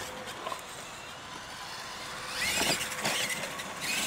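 Radio-controlled monster truck running on a dirt track, its motor whining up and down in short spurts, loudest about two and a half to three seconds in.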